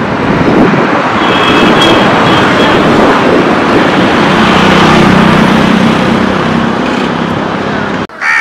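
Road traffic noise with a vehicle engine passing close. The hum swells to its loudest about halfway through, then eases off.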